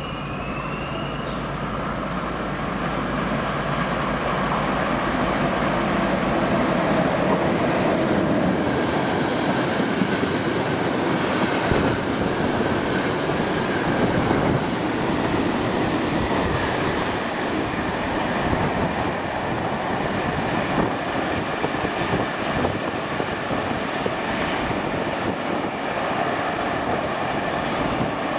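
Freight train of cement tank wagons running through the station without stopping: a steady noise of wheels on the rails that builds over the first few seconds, is loudest about halfway through, and carries on as the wagons pass.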